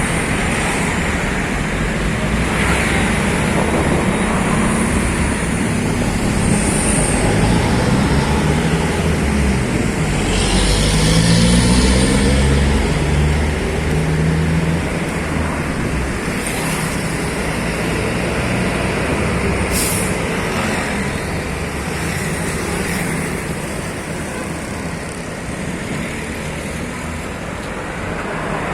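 Heavy road traffic with a bus or truck diesel engine passing, its pitch rising as it accelerates about ten to fourteen seconds in, with a short hiss around the same time and a brief sharp high sound about twenty seconds in.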